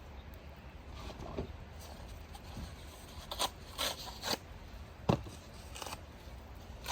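Wood burning in a steel fire pit: a few scattered crackles and short scraping sounds over a low steady rumble, with one sharp pop about five seconds in.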